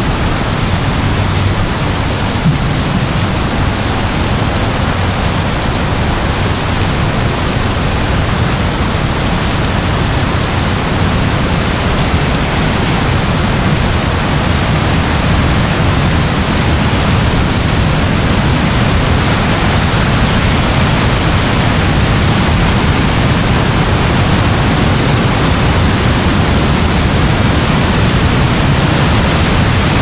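Heavy rain pouring down in a steady, dense hiss, with a low rumble underneath and no breaks.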